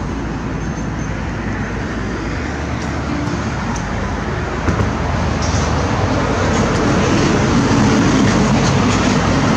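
Steady rumble of motor traffic, growing a little louder in the second half.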